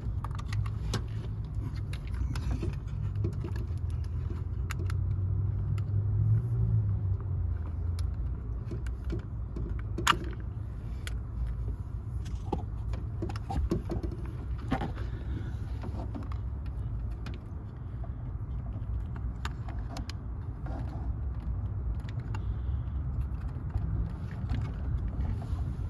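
Scattered clicks and taps from handling the small plastic and metal parts of a car door lock actuator while a replacement DC motor is fitted, over a steady low rumble. The sharpest click comes about ten seconds in.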